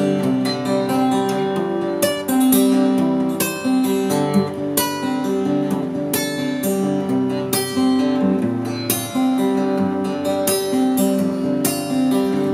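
Acoustic guitar played solo: an instrumental tune of plucked notes in a steady, unbroken run, each note left to ring.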